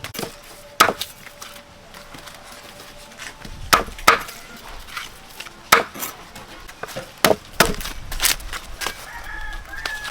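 A series of sharp knocks and clatters at uneven intervals, with chickens clucking and a rooster crowing in the background.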